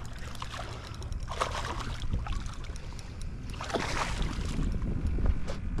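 A hooked black drum splashing at the water's surface as it fights the line, with splashes about a second and a half in and again around four seconds, over wind rumbling on the microphone.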